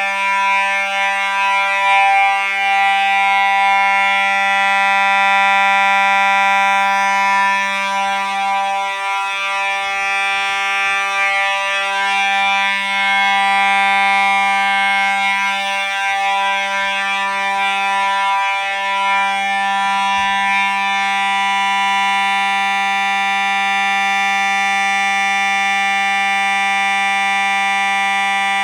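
Simplex 4903-9219 fire alarm horn sounding a loud, continuous horn tone that holds steady without pulsing.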